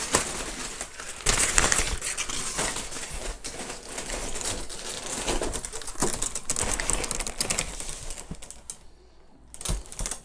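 Rummaging in a cardboard box: plastic wrapping and cardboard rustling and crinkling with many irregular clicks and knocks as items are shifted and a shrink-wrapped pack of plastic bottles is lifted out. It goes quieter for about a second near the end, then a few more clicks.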